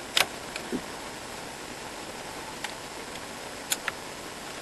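A few light clicks and taps from small parts being handled while plugging a flexible ribbon cable into the keyboard's connector, with one sharper click just after the start and a quick pair of clicks later, over a steady hiss.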